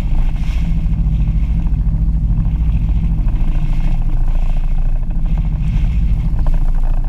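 Jet ski engine running steadily, a low, even drone that holds its pitch throughout.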